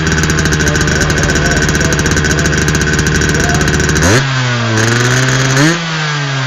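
Yamaha RX-King two-stroke single-cylinder motorcycle running through a hollowed-out ('bobok') muffler, the exhaust reworked for a crisp, snarling 'garing ngorok' note. It is held at steady raised revs, drops suddenly about four seconds in, rises briefly and then falls away.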